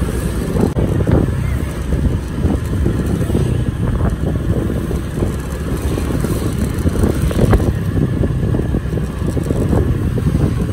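Steady road-traffic noise: a dense low rumble of vehicle engines, with a few scattered sharp ticks.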